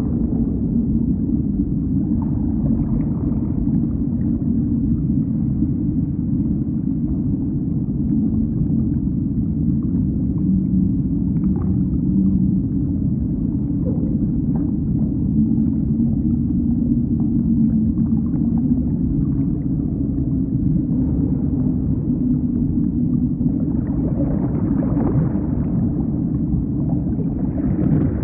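Underwater ocean soundscape: a steady deep rumble with faint, slowly wavering low tones like distant whale moans. A swell of rushing noise comes near the end.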